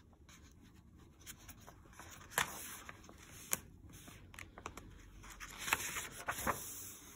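Pages of a hardcover picture book being handled and turned: faint paper rustling and scraping with a few light ticks.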